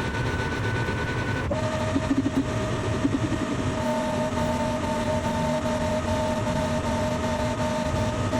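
Machine tool running with a steady high whine over a low rumble; the whine jumps to a lower pitch abruptly about a second and a half in.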